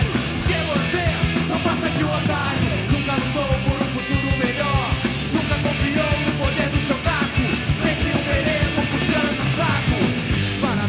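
Punk rock song played by a full band, fast and loud, with drum hits several times a second.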